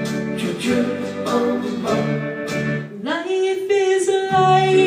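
A country-gospel song with strummed guitar accompaniment. About three seconds in, a woman's solo voice comes in, sliding up into a long held note over the accompaniment.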